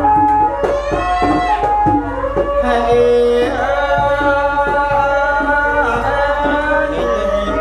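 Traditional Khmer wedding music: a melody of held and bending notes over regular hand-drum strokes, with a voice singing along.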